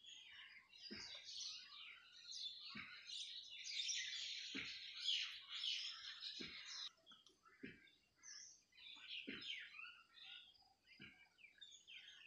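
Many small birds chirping and twittering in a dense chorus that thins out about seven seconds in. Under it comes a soft, low thud about every second and a half to two seconds.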